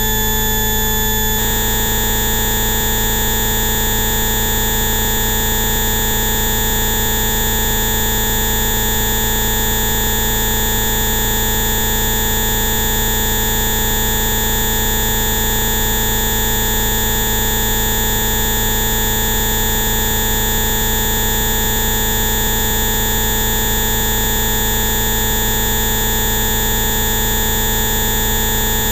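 A dense stack of steady electronic tones, a 'Rife frequency' complex of many pure tones sounding at once, giving an even buzzing drone. The set of tones changes once, about a second and a half in, and then holds unchanged.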